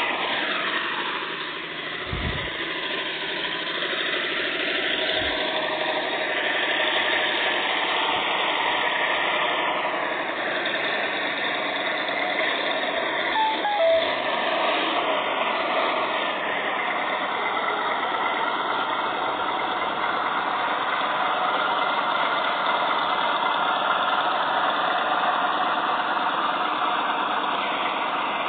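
Kawasaki Vulcan 900 Custom's V-twin engine running steadily, a recorded sound played back from a phone app, with a brief louder moment about halfway through.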